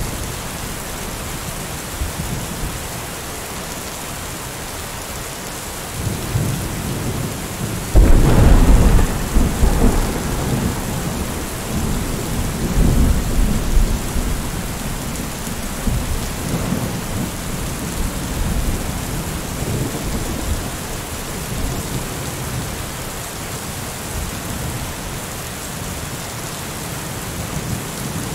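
Steady rain hiss with rolling thunder. A rumble builds about six seconds in, then a loud clap about two seconds later rolls on for a couple of seconds, and lower rumbles follow twice more.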